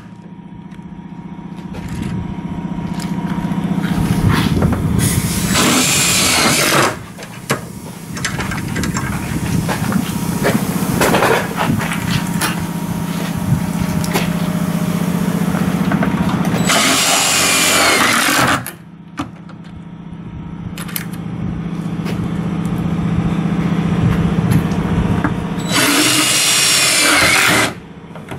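Cordless drill driving self-drilling screws into a school bus's sheet-metal side panel. The motor runs under load in three long runs, each growing louder over several seconds, with brief breaks about seven and nineteen seconds in.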